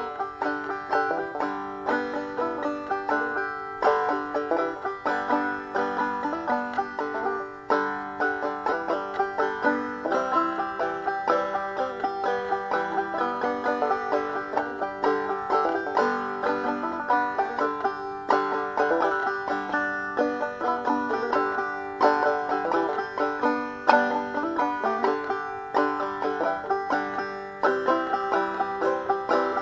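Background music: fast plucked banjo picking in a bluegrass style, with a steady run of quick notes.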